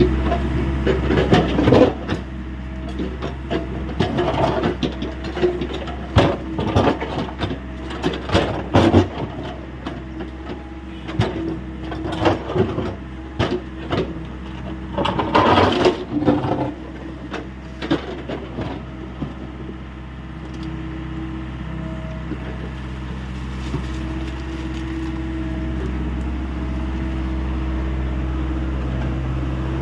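Hyundai 85A SMART excavator's diesel engine running steadily, with a run of sharp knocks and clanks from the working machine over the first half or so, then the engine alone, getting slightly louder near the end.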